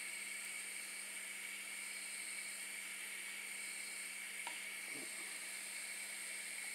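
Steady faint hiss with a low constant hum underneath, unchanging throughout.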